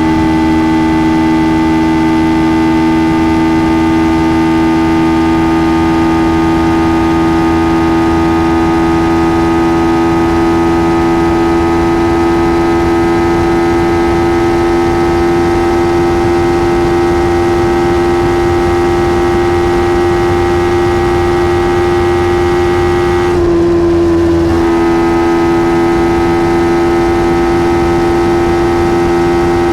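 Kawasaki Ninja 300's parallel-twin engine through its stock exhaust, held at high revs under steady throttle, its pitch creeping slowly upward, with a brief throttle lift about 23 seconds in before it pulls on again. Wind rushes underneath.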